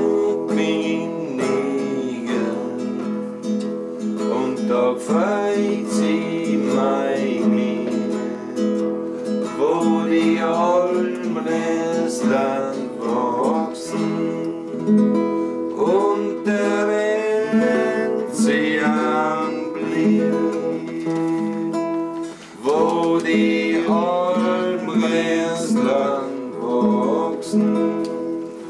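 A man singing a German folk song to his own strummed acoustic guitar.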